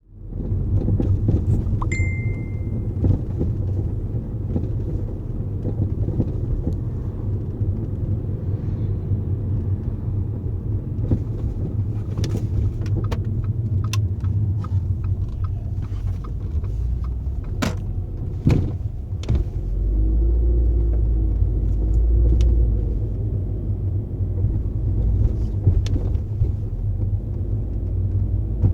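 Front suspension of an Audi A4 B8 on Solowerks coilovers clunking: scattered sharp knocks over the steady low rumble of the car driving, the loudest a little past halfway. A short beep sounds about two seconds in.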